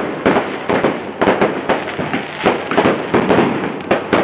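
Fire-lion fireworks going off close by: a rapid, irregular string of sharp bangs over constant crackling.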